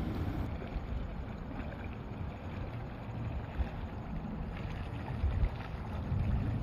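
Wind buffeting the microphone: an uneven low rumble that swells a few times.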